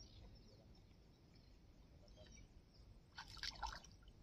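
Near silence, then a short crackling burst of small splashes about three seconds in, from hands working in shallow river water.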